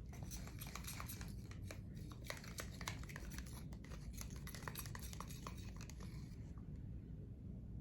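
Quick run of small clicks and scratchy rubbing as paint supplies are handled, thinning out about six and a half seconds in to a low room hum.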